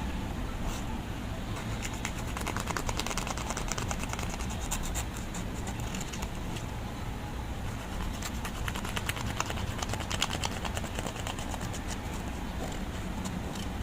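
Slime being kneaded and squished by hand: a dense run of sticky clicks and small pops, with a steady low rumble underneath.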